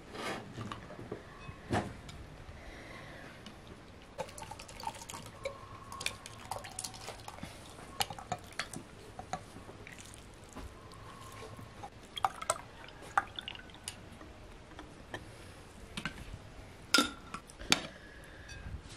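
A red drink glugging from a glass bottle into drinking glasses, amid clinks of metal serving tongs on plates and glassware. The loudest sounds are two sharp clinks near the end.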